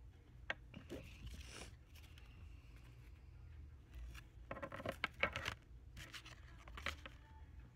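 Card stock being handled: a strip of joined code cards rustling and scraping, loudest about five seconds in, with a few light taps as things are set on a wooden table.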